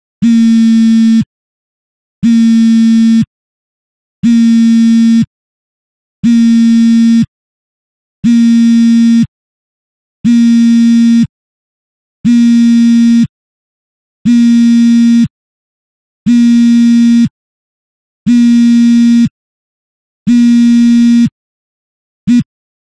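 Smartphone vibrating on fabric: eleven buzzes of about a second each, one every two seconds, then one very short buzz near the end.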